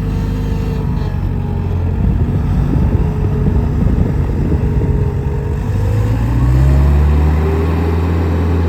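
New Holland L565 skid steer's diesel engine running steadily; about six seconds in the engine speed rises and holds at a higher pitch.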